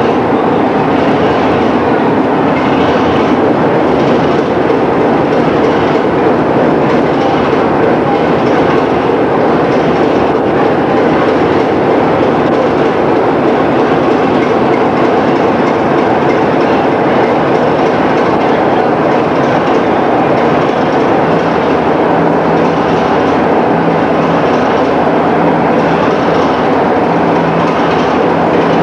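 Train made up of 4-TC coaches with a Class 33 diesel and a Class 73 electro-diesel locomotive, running steadily along the track with a continuous rail and wheel running noise. A faint low hum comes and goes in the last third.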